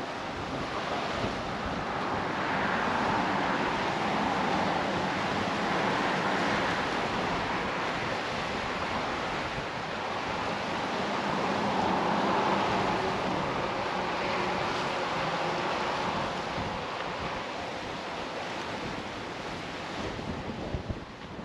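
Wind on the microphone and rushing sea water below, a steady hiss that swells and eases every few seconds.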